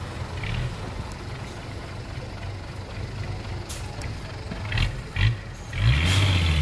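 Hyundai 5-tonne dump truck's diesel engine running at low revs as the truck creeps forward with its bed tipped, dumping soil. There are a few short hisses about 4 s and 6 s in, and the engine gets louder near the end.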